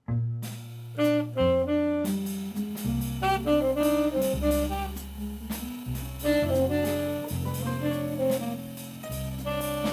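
Small jazz ensemble starting to play on cue, with a low bass line and melodic lines, drums coming in about two seconds in. The band is deliberately playing without alignment, with no shared groove, so the parts do not lock together.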